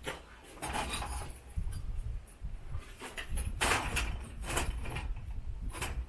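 A few scattered knocks and rattles of gear being handled and set down, the loudest a cluster of clunks a little past halfway, over a low wind rumble on the microphone.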